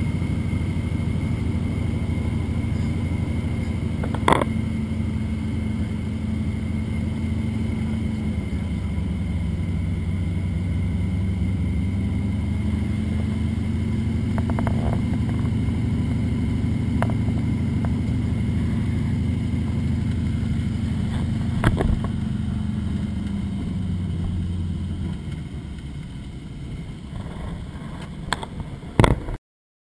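A float plane's engine and propeller droning steadily, heard inside the cabin during a low approach and landing on water. The pitch dips and comes back partway through. Near the end the drone drops and fades as power comes off on touchdown, with a few sharp knocks along the way, and the sound cuts off abruptly.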